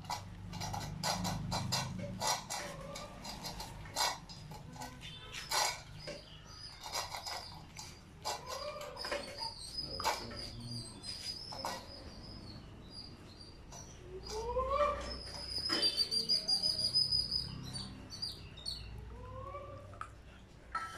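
Beagle puppy eating dry kibble from a stainless-steel bowl: crunching and sharp clicks of kibble and muzzle against the metal, busiest in the first half and thinning later. A few short rising calls come through now and then, with a high trill about three-quarters of the way in.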